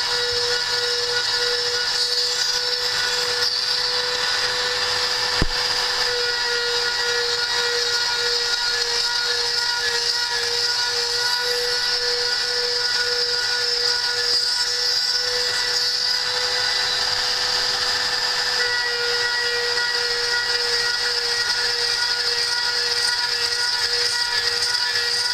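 CNC router spindle with its cutter milling a slot in 5 mm aluminium plate: a steady high whine with a cutting hiss, and one sharp click about five seconds in.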